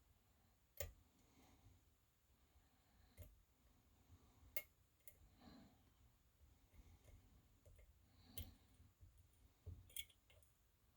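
Faint, irregular clicks of a dimple pick and tension wrench working the pin-in-pin stacks of a 4-pin Mul-T-Lock dimple lock, about half a dozen scattered sharp ticks over several seconds.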